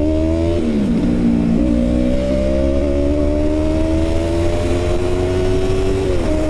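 Yamaha MT-03's parallel-twin engine through a full aftermarket free-flow exhaust, pulling under load with its pitch slowly rising, dropping with an upshift about half a second in and again near the end.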